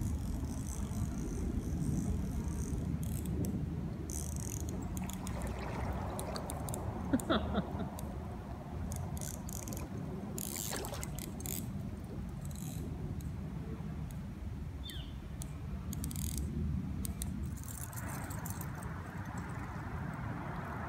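Steady low outdoor rumble by the river, with scattered small clicks and rattles of fishing tackle being handled at the reel. A brief squeak about seven seconds in is the loudest moment, and a softer rush of water comes up near the end.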